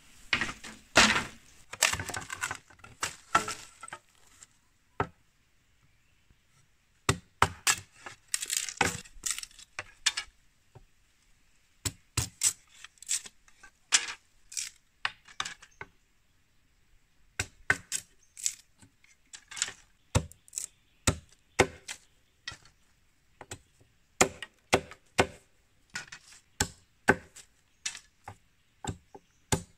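Long bamboo strips clattering as they are handled. Then a machete strikes and splits a green bamboo pole into fence slats, in runs of sharp chopping cracks with short pauses between them.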